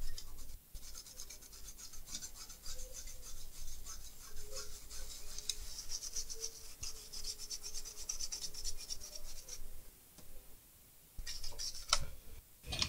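Rapid back-and-forth scrubbing on a laptop motherboard, cleaning liquid-damage corrosion from around the screen connector. The strokes stop about ten seconds in, and a few more follow near the end.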